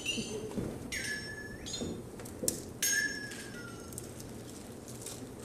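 Whistle tones: a short high one at the start, then two longer ones about a second in and near the middle that each slide down in pitch and hold, with a single clink in between.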